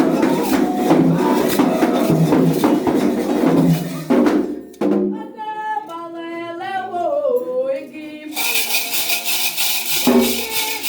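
Hand percussion with a steady beat and group singing. Just before halfway it breaks off to a single voice singing alone for about three seconds, then the percussion comes back in.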